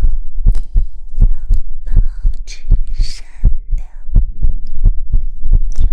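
Soft low thumps in a steady rhythm, about three a second, over a steady low hum, with breathy whispering around the middle.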